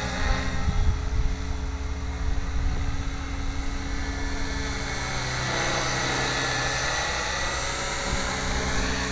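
Gaui radio-controlled helicopter in flight: steady hum and whine of its motor and rotors, with slight rises and falls in pitch. It runs smooth and quiet, its bearings, gears and rotor head freshly lubricated.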